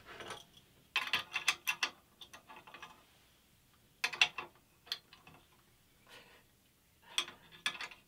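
Ratchet spanner clicking as a hex bolt is tightened, in three short bursts of rapid ticks with pauses between strokes.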